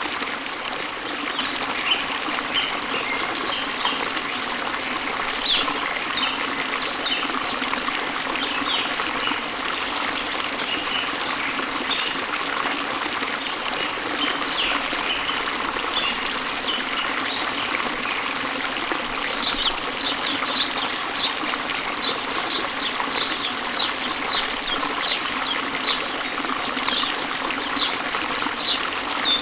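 Steady rush of a waterfall with small birds chirping over it. About two-thirds of the way in, one bird starts repeating a short high chirp about twice a second.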